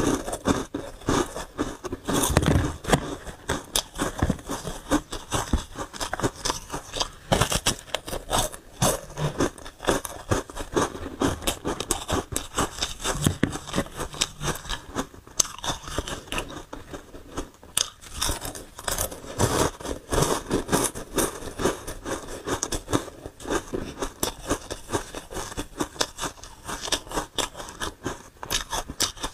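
Frosty foam-textured ice being bitten and chewed: dense crunching with many quick, sharp crackles and snaps as the ice breaks up.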